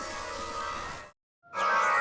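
Synthesized sci-fi energy sound effect: a steady, layered hum of many held tones that cuts off about a second in. After a short silence a second, louder energy effect starts near the end.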